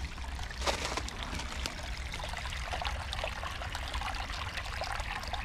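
Small, shallow woodland creek running over stones and leaf litter, heard close up. A short sharp sound stands out just under a second in.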